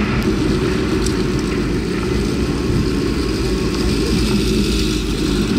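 Motor vehicle on the move: a steady low engine and road drone.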